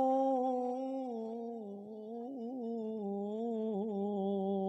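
A male vocalist, amplified through a handheld microphone, holds one long drawn-out note of an Arabic sholawat. About a second and a half in the pitch steps down, and he adds small wavering ornamental turns before the note carries on.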